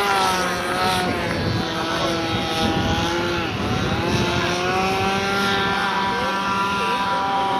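Engine of a flying lawnmower running with a steady high-pitched whine; its pitch dips briefly about three and a half seconds in, then rises back and holds.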